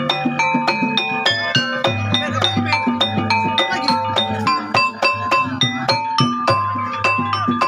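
Jaranan gamelan music: a fast, even run of struck metallophone notes with percussion over a low held note.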